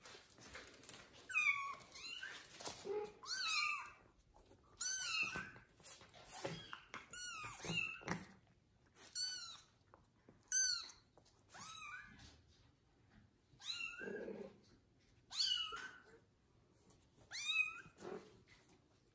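Kitten mewing repeatedly: about a dozen short, high-pitched mews, one every second or two.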